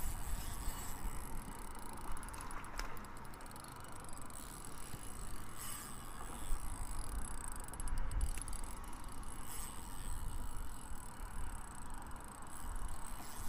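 Spinning reel being cranked to bring in a fish, a steady mechanical whirring with a few light clicks, over a low rumble of wind on the microphone.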